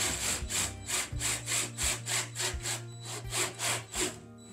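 A drill with a 3/4-inch bit boring a hole through exterior wall siding, cutting in rhythmic rasping strokes about three a second that die away near the end as it breaks through. A steady low hum runs underneath.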